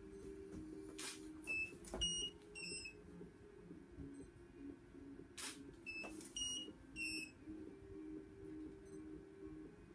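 Studio flash heads firing in two rounds, each a sharp click followed by three short, high beeps about half a second apart: the strobes' ready signal as they recycle after the flash. A faint low hum runs underneath.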